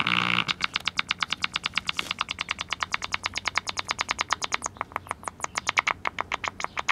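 1948 Travler five-tube AM radio's speaker, whose steady hum breaks off about half a second in to a rapid, even train of chirping pulses, about ten a second. It follows an extra filter capacitor being clipped into the live set: the radio has broken into a pulsing oscillation that its repairer has never heard from a tube radio before.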